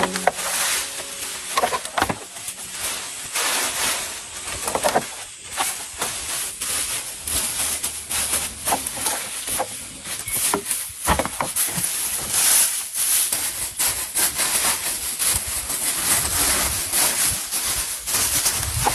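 Steady hiss of rain and wind, with many scattered sharp taps and knocks.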